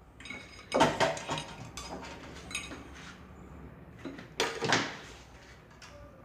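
Handling noises: a few knocks and clatters, the loudest about a second in and again past four seconds, as a PC ATX power supply is picked up and set down among the wiring on a bench.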